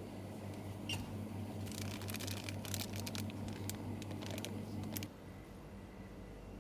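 Plastic bag of rice cakes crinkling and crackling in the hand as it is handled, over a steady low hum. Both stop abruptly about five seconds in.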